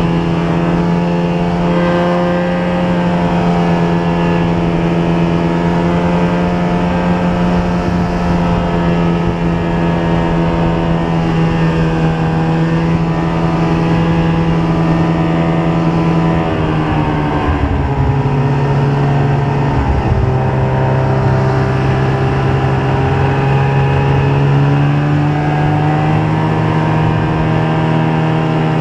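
Snowmobile engine running steadily under way, a loud droning note. About seventeen seconds in the pitch drops as it eases off for a few seconds, then climbs back up to a steady drone.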